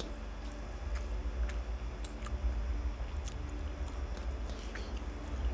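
People eating rice by hand from steel plates: chewing and small, scattered clicks of fingers mixing rice, over a steady low hum.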